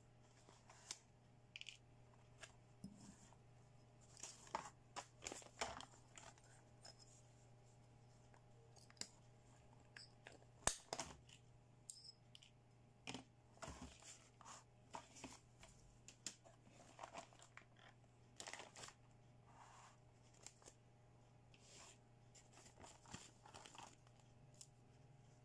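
Clear plastic toy packaging crinkling and tearing as it is opened and handled, with light clicks of plastic toy pieces. The crackles come in scattered bursts, and one sharp click about ten seconds in is the loudest.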